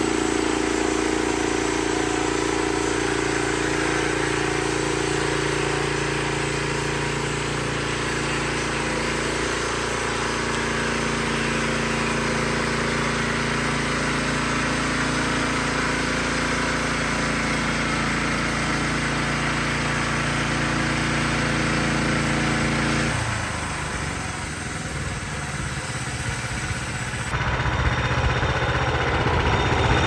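Norwood LM30 bandsaw mill's engine running steadily under load as the band blade saws through an eastern red cedar cant, with a rushing hiss of sawdust. About 23 seconds in the engine's steady tone breaks up and drops off, and it picks up again a few seconds later.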